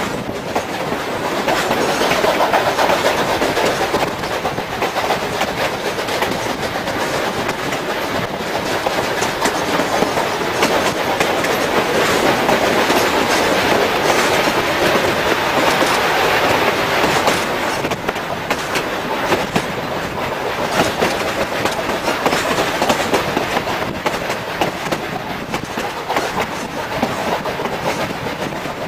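Narrow-gauge train coaches running along the track: a steady rush of running noise with frequent clicks of the wheels over the rail joints.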